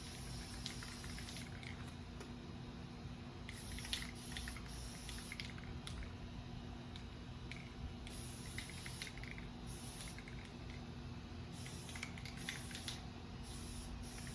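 Aerosol spray paint can hissing in several short stop-start bursts, each from about half a second to two seconds long.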